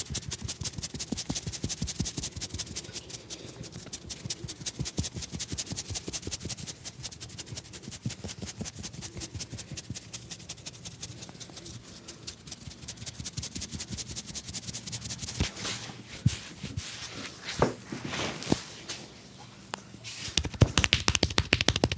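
A barber's hands rapidly tapping and slapping in a percussive massage, many quick slaps a second in an even rhythm. It breaks off briefly near the end, then starts again louder.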